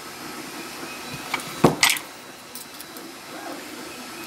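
A few light metallic clicks as a lock cylinder housing is handled and a slender steel tool goes into its pin chambers, sharpest about a second and a half in, over a low steady background hiss.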